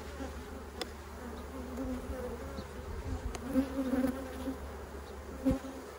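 Honey bees roaring in an open hive box: a steady hum with a slightly wavering pitch, broken by a few faint clicks. It is a queenless roar, which the beekeeper takes as a sign that the queen is not in this box.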